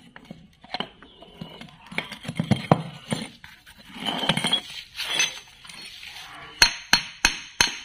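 Metal clinking and scraping as a steel wheel hub with its bearing is handled and fitted onto a swing-arm stub axle. Near the end, about four sharp hammer blows on metal in quick succession, about three a second.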